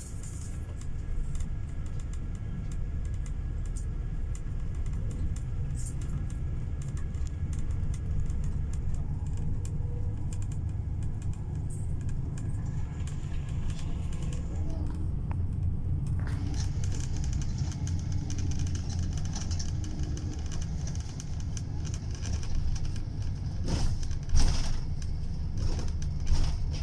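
Bus engine and road noise heard from inside a moving bus's cabin: a steady low rumble with light rattling. A high hiss comes in a little past the middle, and there are two sharp knocks near the end.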